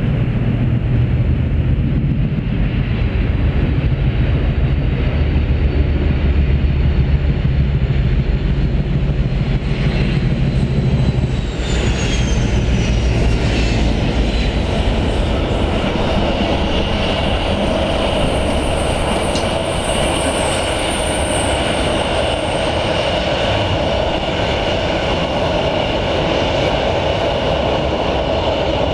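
Two Class 56 diesel-electric locomotives with a loaded log train, their deep engine note running loudly for the first eleven seconds or so. After a sudden change, the train goes by close, with the wagons rumbling and a high, thin squeal from the wheels.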